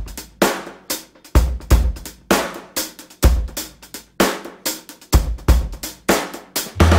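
Background music: a steady drum-kit beat of kick drum, snare and cymbals with no melody; near the end a bass line and sustained chords come in.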